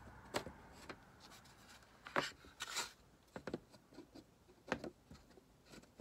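Scattered light knocks, taps and rubbing of thin wooden rack pieces as a shelf with round holes is worked into the slotted side panel. About seven short knocks, the loudest about two and three seconds in.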